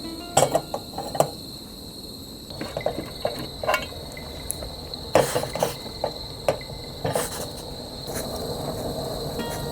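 Insects trilling steadily at one high pitch, with irregular sharp clicks and knocks of chestnuts being picked over and handled.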